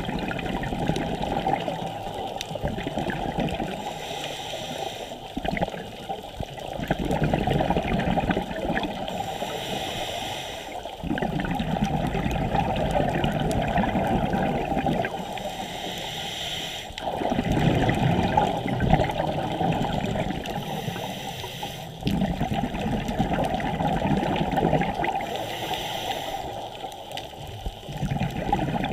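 Scuba diver breathing through a regulator underwater: a short hiss of inhalation about every five to six seconds, each followed by a long bubbling rush of exhaled air.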